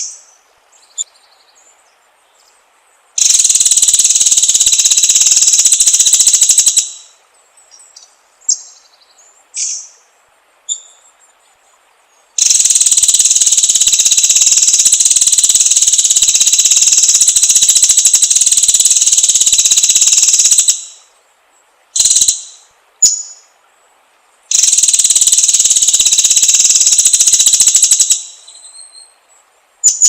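White-rumped shama (murai batu) lure recording: short high chirps and notes between three loud, long, high-pitched buzzing trills lasting several seconds each.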